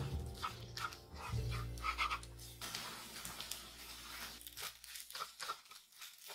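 A bamboo spatula scrapes and knocks irregularly against a nonstick frying pan while egg-coated fried rice sizzles as it is stirred. Background music with sustained low notes fades out in the first half.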